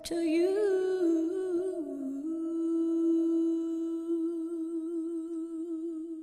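A singer's closing note of a slow ballad: a short wavering vocal run, then one long held note with vibrato that fades out at the end, over faint accompaniment.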